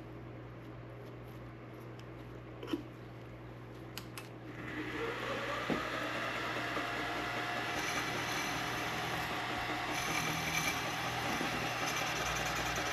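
Milling machine: a couple of clicks, then about five seconds in the spindle winds up in pitch and runs steadily, with a hiss like the end mill starting into carbon fiber.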